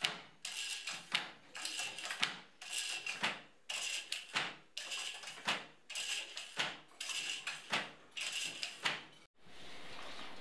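Wooden hand loom weaving: the weft shuttle is thrown through the shed with a short swish and the reed is beaten against the cloth with a sharp wooden knock, over and over about once every 0.8 s. The rhythm stops abruptly about nine seconds in, leaving a faint steady hiss.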